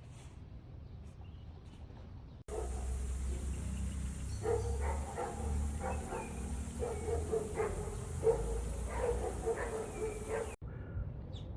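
Pet animal giving many short, repeated calls, one or two a second, over a low rumble; the sound begins suddenly a couple of seconds in and cuts off sharply near the end.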